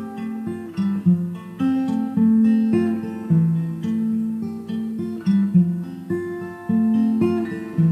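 Background music: acoustic guitar playing a run of plucked notes that ring and die away, several a second.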